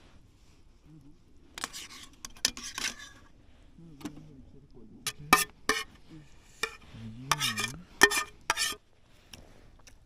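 Metal utensils clinking and scraping against cookware in a string of sharp clinks, with a few short low hums of a voice in between.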